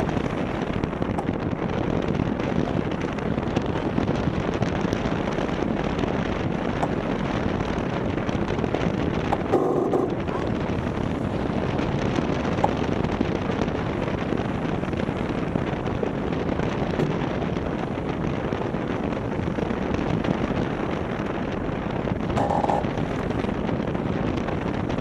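Steady wind buffeting the microphone, mixed with water rushing along the hull of a Maxi 72 racing yacht under sail. A short sharper sound cuts through about ten seconds in and again near the end.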